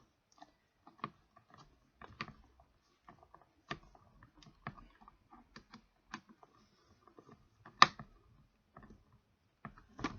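Phillips screwdriver tightening the screws of a plastic headset clamp on a helmet shell: irregular small clicks and scrapes, with one sharper click near the end.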